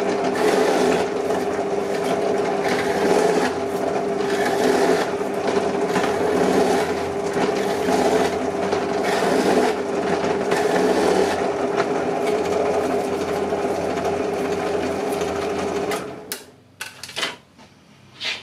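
Bench drill press running, its bit cutting into a thin metal panel as the feed lever is worked, the level swelling and dipping repeatedly. The motor stops near the end, followed by a few light clicks.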